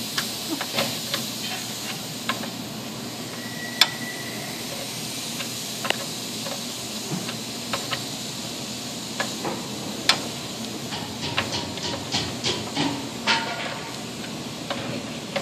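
Breaker bar and 17 mm socket being spun on an oil-pan drain plug: irregular sharp metal clicks and taps over a steady hiss.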